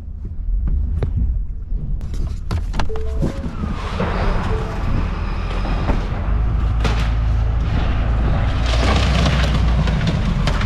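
Truck engine running low and steady, with scattered knocks and clatter, then from about four seconds a growing rushing, scraping noise.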